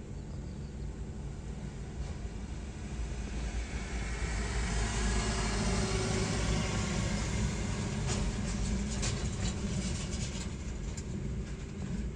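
Jet airliner engines rumbling as a heavy aircraft passes, swelling about four seconds in and easing off near the end, with brief crackles.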